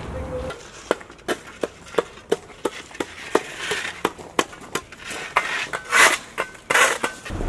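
Several metal shovels chipping and scraping ice and slush off pavement: sharp strikes about three a second, with a few longer scrapes near the end.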